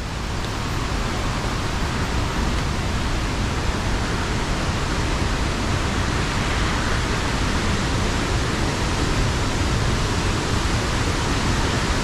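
Steady rush of falling water from Tad Yeuang waterfall, growing slightly louder.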